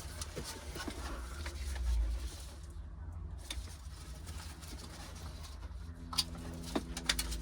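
Scattered small clicks and knocks of parts being handled over a low steady hum, with a quick run of clicks in the last couple of seconds, as wiring connectors and the head unit are fitted into the dash.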